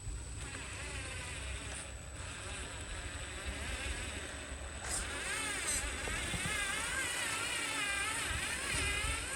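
Small electric motors of a radio-controlled toy construction machine whining, the pitch wavering up and down as they speed up and slow down, louder and busier from about halfway in.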